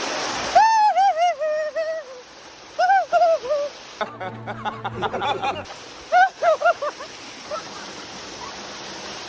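Waterfall rushing for a moment, then cut off abruptly by background music: a high, bending melodic line in short falling phrases, with a low steady tone under it for a second or so around the middle.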